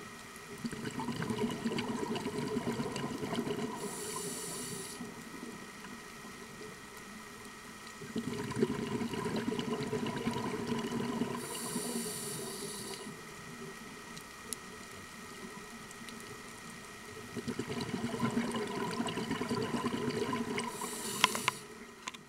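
Scuba diver breathing through a regulator underwater: three long bubbling exhalations, each ending in a short hiss of inhalation, about one breath every eight seconds.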